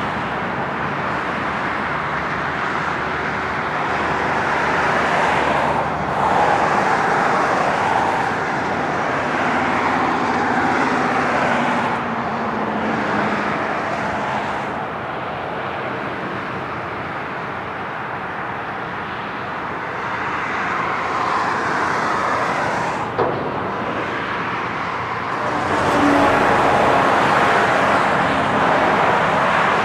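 Road traffic: a steady rush of passing cars and tyres. About ten seconds in, one passing vehicle's engine tone slides down in pitch as it goes by.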